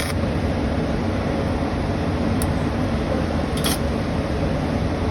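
Steady machine running noise, even and unbroken, with two short hissy bursts in the middle.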